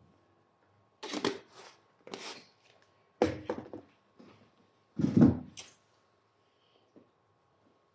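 A few short clattering knocks and rustles at irregular spacing, the loudest about three and five seconds in, from things being handled.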